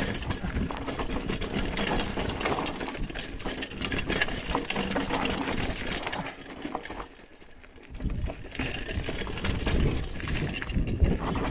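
Hardtail mountain bike rattling continuously over a rough dirt trail at speed: frame, chain and tyres clattering, with a short quieter stretch about two-thirds of the way through.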